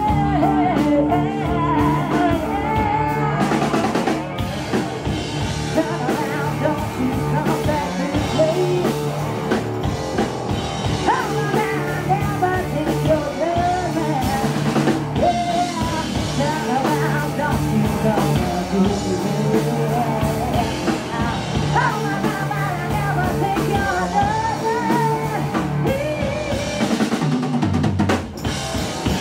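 Live rock band playing: electric guitar, bass guitar and drum kit, with a woman singing the lead vocal.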